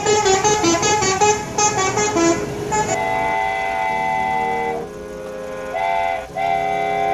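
A multi-tone 'telolet' truck horn plays a quick run of changing notes, then sounds a long blast, a short one and another long one.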